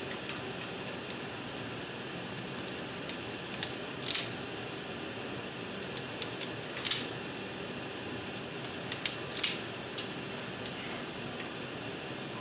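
Wire strippers clicking and snipping now and then as fixture wires are handled and twisted together for a splice, a dozen or so sharp clicks, the loudest about 4, 7 and 9 seconds in. Under them a steady hum from the running air handling unit.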